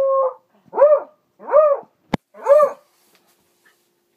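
Beagle barking at a mounted wild boar head on the wall: the end of a long drawn-out bay, then three short barks about a second apart. A single sharp click comes between the second and third bark.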